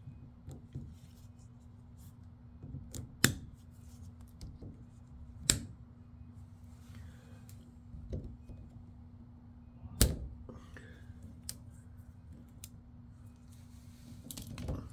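Diagonal cutting pliers snipping plastic cable ties off bundled power cords: a series of short, sharp snaps, the loudest about three, five and a half and ten seconds in, with quieter clicks of the cables being handled between them. A faint steady hum runs underneath.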